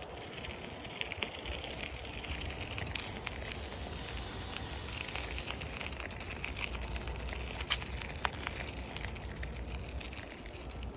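Bicycle rolling along a path: the tyres make a steady crackle with scattered clicks over a low rumble, one sharp click standing out a little past halfway.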